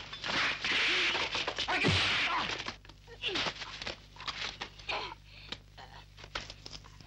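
Fight-scene soundtrack: shouting and crying out with sharp whack-like hit effects, loud for the first two and a half seconds, then quieter cries and groans.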